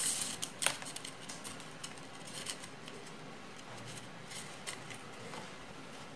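Handling noise of PVC pipe and wires: scattered light plastic clicks and rustles as a white PVC pipe with electrical wires running through it is worked into a grey PVC fitting, with two sharper clicks at the start and about a second in.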